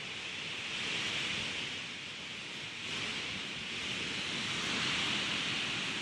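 Steady rush of water from Sunwapta Falls: an even, hissing noise that swells slightly a couple of times.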